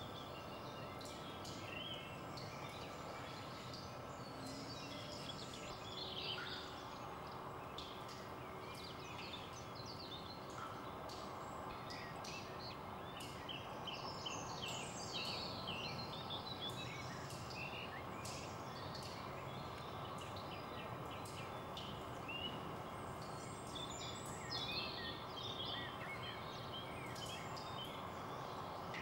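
Woodland ambience: many small birds chirping and twittering over a steady background hiss, the birdsong growing busier about halfway through.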